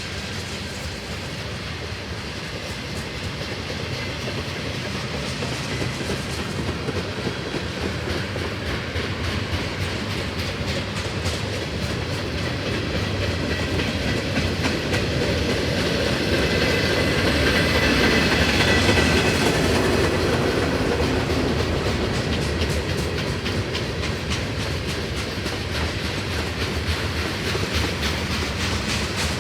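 Long freight train's cars rolling past at track side, steel wheels clattering over the rail joints in a steady stream. It grows louder toward a peak about two-thirds of the way through, where a faint high whine rises over it, then eases off a little.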